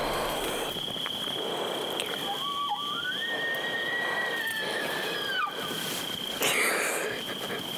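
A bull elk bugling once: a high whistle about three seconds long that rises, holds, then drops away. A short rustle close by follows near the end.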